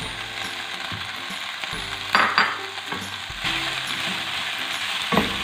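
Chicken, onion and chopped green capsicum sizzling in oil in a non-stick pan while a wooden spatula stirs them, scraping against the pan. A few sharper scrapes stand out about two seconds in and again near the end.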